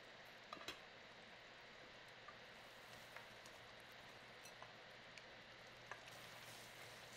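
Goat meat curry sizzling faintly in a metal pot as its released water cooks off, with scattered light clicks and scrapes of a wooden spatula stirring against the pot.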